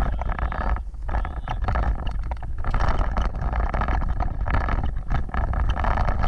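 Offroad vehicle driving over rough ground: a steady low rumble under frequent rattles and knocks, with wind buffeting the microphone.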